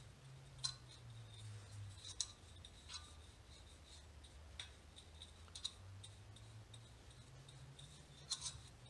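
Faint, irregular clicks and light scrapes of a small brush dabbing anti-seize into a wheel hub's bore and knocking against its can, over a low steady hum.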